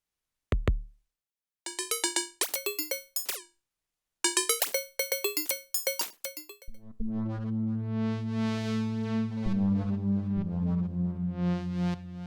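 Elektron Digitone FM synthesizer playing preset sounds: one short kick, then two quick runs of short, decaying pitched notes, then a sustained chord from about halfway through. The chord shifts pitch twice and brightens and darkens twice.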